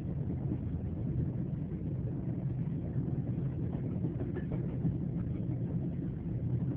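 Train running steadily, a continuous low rumble without breaks.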